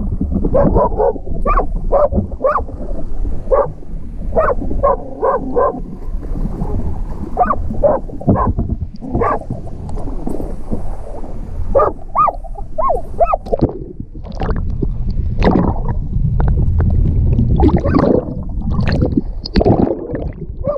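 Many short, high, rising yelps and squeals in quick runs, over a steady low rumble of water and wind on the microphone. Water churns and bubbles as the microphone dips under the surface near the end.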